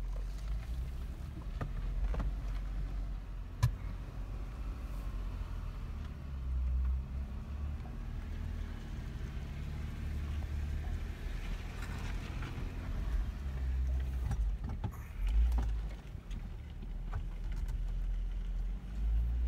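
A 4x4 driving slowly over a rough dirt trail: a low engine and drivetrain rumble that rises and falls, with knocks and rattles from the bumpy ground and one sharp knock about three and a half seconds in.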